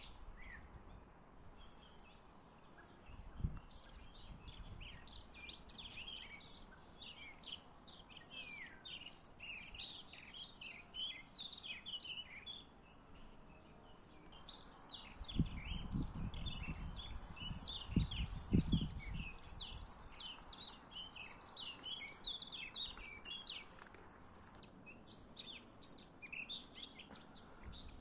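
Several songbirds singing and chirping, a busy overlapping chorus of short high notes and trills. A low rumbling noise comes in for a few seconds about halfway through.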